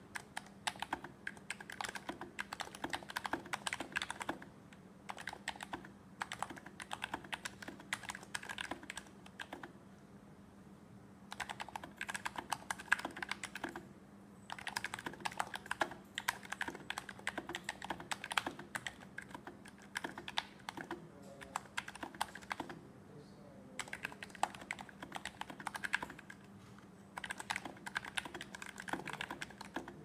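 Typing on an HHKB keyboard whose Topre switches are fitted with Novatouch stems and silenced with Hypersphere rings: a dense run of keystrokes in bursts, broken by several pauses of one to two seconds.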